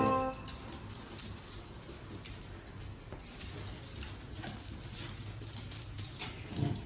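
Dogs' claws clicking and scrabbling on a tiled floor as two beagles tug and scuffle over a fabric scarf, with a brief louder low sound near the end.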